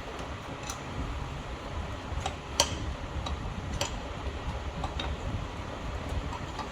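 About half a dozen light, scattered clicks and taps of metal parts and tools being handled at a car's brake caliper during a pad change, the sharpest a little over two and a half seconds in, over a low steady background rumble.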